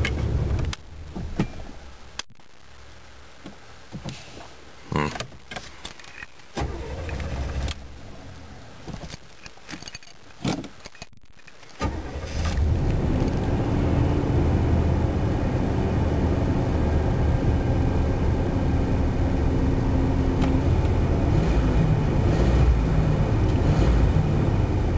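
Light clicks and knocks from handling, then a 1985 Chevrolet Caprice's small-block V8 is started with the key about halfway through and settles into a steady idle. It idles rough because the timing chain has skipped a notch.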